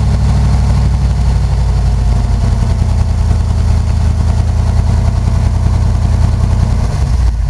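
1977 Chevrolet K10 pickup's carbureted engine running steadily and loudly shortly after a cold start, heard from inside the cab, its note briefly dipping near the end.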